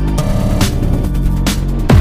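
Electronic music with a heavy beat, a strong hit roughly every second, and deep bass swoops that fall in pitch near the end.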